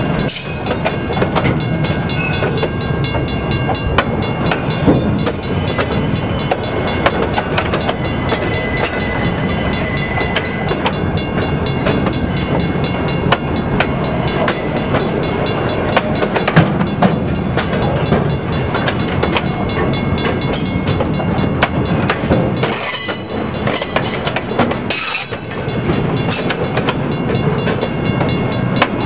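A string of empty TTX flatcars rolling past close by, their steel wheels clacking and rattling over the rail joints. The clatter goes on without a break, easing briefly twice near the end.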